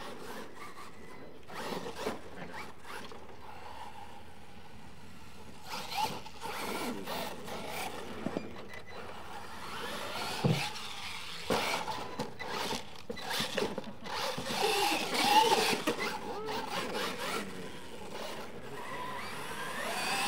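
Radio-controlled truck driving on a dirt track: its motor whine rises and falls with the throttle over tyres scrabbling on loose dirt, with a thump about ten seconds in.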